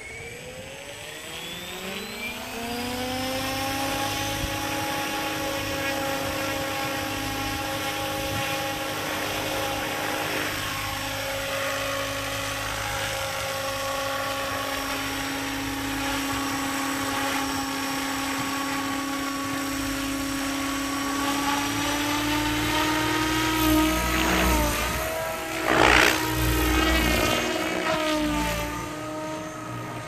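Electric SAB Goblin 770 RC helicopter spooling up: its whine rises in pitch and settles to a steady tone about three seconds in, then holds steady while it hovers. Near the end the pitch wavers as it climbs away, with a loud whoosh.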